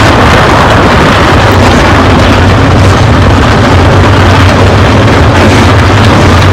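A full field of stock car engines running together after the start command, a loud steady drone heavy in the low end.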